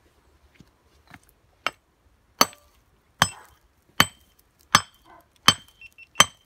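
A steel mason's hammer striking a limestone rock: two light taps, then seven hard, evenly spaced blows about three-quarters of a second apart, each with a short metallic ring.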